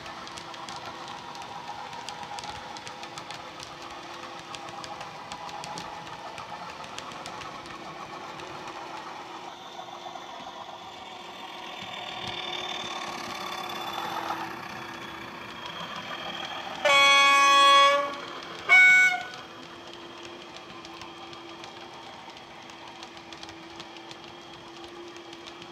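Soundtraxx Econami DCC sound decoder in a Bachmann OO-gauge Class 37 model playing the locomotive's diesel engine sound through its small speaker. The engine note swells and falls back, then two horn blasts sound about three-quarters in: a longer low note followed by a short higher one.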